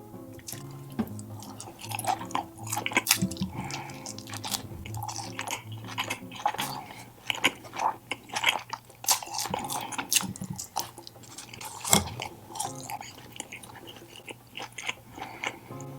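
Close-miked eating sounds: a person chewing and biting into tandoori chicken and kebabs, with many irregular wet clicks and smacks.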